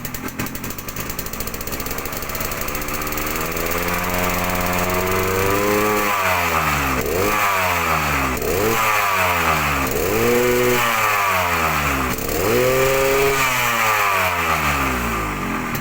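Yamaha RX-King's two-stroke single-cylinder engine revving: a slow climb in revs, then four or five quick throttle blips that rise and fall, settling back down near the end. It runs through the stock exhaust with a reworked inner baffle and carburettor jets drilled larger, set up for a dry, growling 'ngorok garing' note, which the owner calls smooth.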